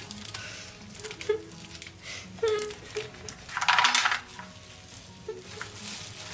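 Raw sangak dough being laid and pressed onto a tray of hot pebbles: scattered clicks of the stones and light sizzling, with a short hiss about four seconds in.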